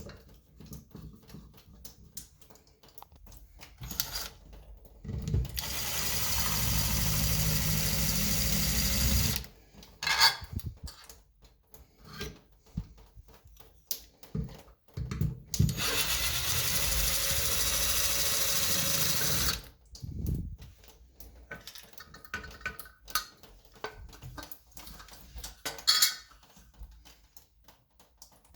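Power drill run twice, about four seconds each time, backing a shower-valve part out, with knocks and handling clatter between the runs.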